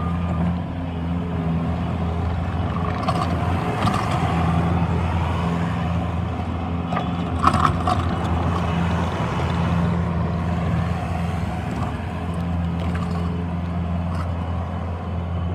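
Bobcat T180 tracked skid steer's diesel engine running steadily with a deep hum, with one brief sharp knock about halfway through.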